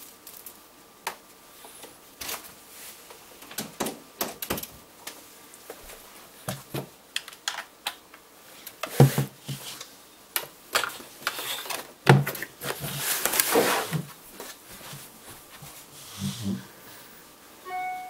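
Scattered clicks, knocks and rustling as a JBL On Stage 200iD speaker dock is handled on a wooden desk and its power cable is plugged in, with a denser scraping stretch about two-thirds of the way through. Near the end comes a brief run of electronic tones.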